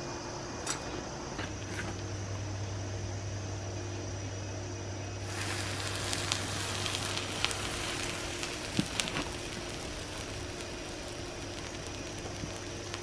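Molten rock poured from a crucible onto a pile of popcorn kernels, setting in suddenly about five seconds in as a loud hiss and sizzle with sharp cracks, then continuing more quietly as the kernels burn in open flames. A low steady hum runs under the first part.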